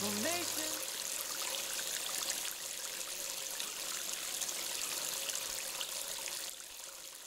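Small stream trickling and running over rocks, a steady water hiss that fades out near the end.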